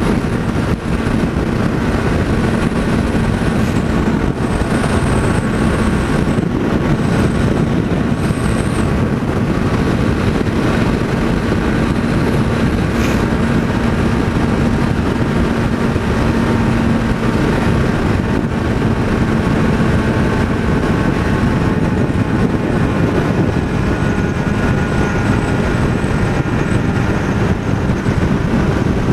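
Wind rushing over the microphone of a Honda Hornet 600 motorcycle at steady highway cruising speed, with the inline-four engine's steady drone underneath.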